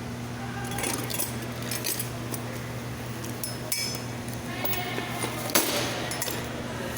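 Scattered metallic clinks and taps from handling tools and wiring in a car's engine bay, the sharpest about five and a half seconds in, over a steady low hum.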